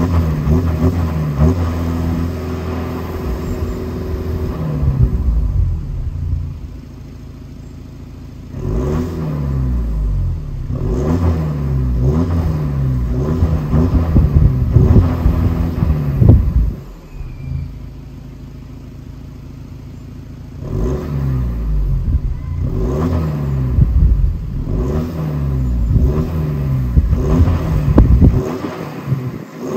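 Audi A3 2.0 TDI four-cylinder turbodiesel, heard at the tailpipe, being revved repeatedly while the car stands still. Its pitch climbs and falls back with each rev. Twice it settles to a steady idle for a few seconds, about seven seconds in and again around seventeen seconds in.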